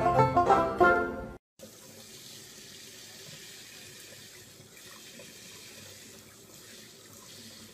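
Plucked-string music for about the first second and a half, cut off sharply. Then a bathroom tap runs steadily into a sink, its stream pouring over a dog's head.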